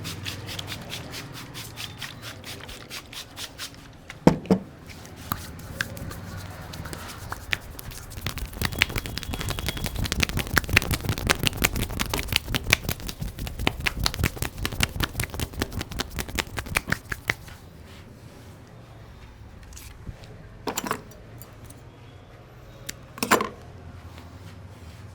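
Rapid percussive tapping on the head during a head massage, several quick strikes a second, getting louder toward the middle and stopping abruptly about two-thirds of the way through. A few single, louder strikes follow near the end.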